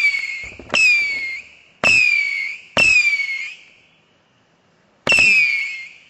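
Multi-shot firework cake firing whistling shots: each a sharp crack followed by a whistle that falls in pitch. Four come about a second apart, then after a short pause one more.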